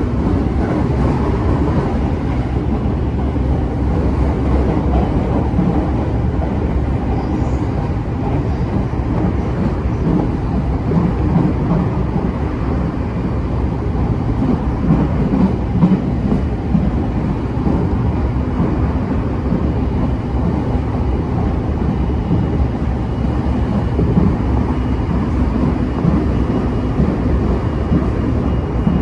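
JR East E233 series 5000-number electric train running between stations: a steady rumble of wheels and running gear on the rails. A faint high tone comes in during the second half.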